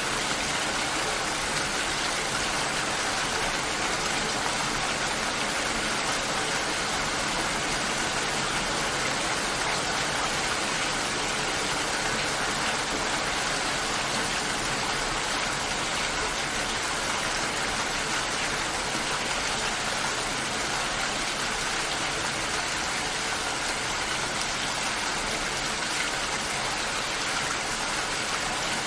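Steady rainfall, an even hiss with no change in strength.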